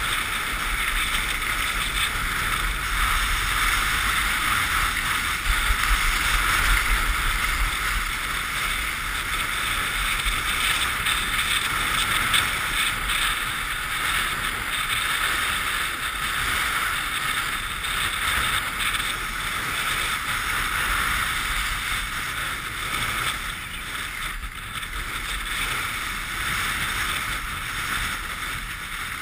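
Steady rushing and scraping of a rider sliding fast down groomed, hard-packed snow, with wind buffeting the microphone, gustier in the first several seconds.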